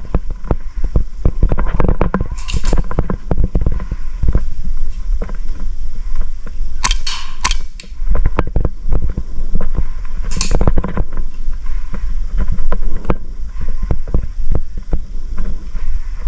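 Airsoft guns firing: many sharp snapping shots at irregular intervals over a constant low rumble, with a few short hissy bursts about seven and ten seconds in.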